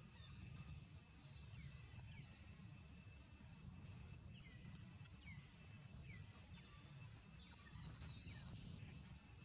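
Near-silent outdoor ambience: a low rumble, a faint steady high whine, and about a dozen short, faint falling chirps scattered through.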